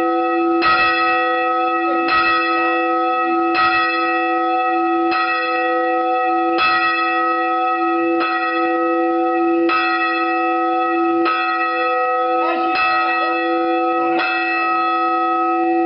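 Church bells ringing in the tower, with strokes about every second and a half and the ringing hum carrying on unbroken between them.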